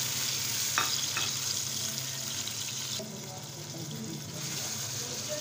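Sliced onions, tomatoes and green chillies sizzling in hot oil in an aluminium pressure cooker pan, with a spatula stirring them and two light clicks about a second in. The sizzle quietens about three seconds in.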